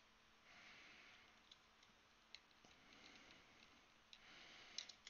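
Faint handling sounds of a small single-key mechanical keyboard kit: a few light plastic clicks, the sharpest near the end, with soft rubbing between them.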